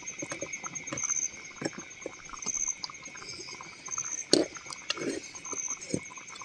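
Night insects trilling steadily and high-pitched, with a pulsing chirp above, under scattered light knocks and clatter; the loudest knock comes a little past four seconds in.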